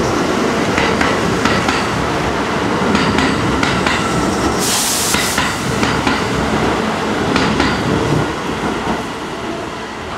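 Kintetsu 15200-series electric multiple unit running through the station without stopping: a steady rumble with wheels clacking over rail joints, and a brief hiss about halfway. The noise eases off near the end as the last car pulls away.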